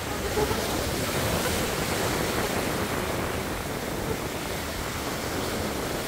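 Sea surf: waves breaking and washing up the shore in a steady rush of noise.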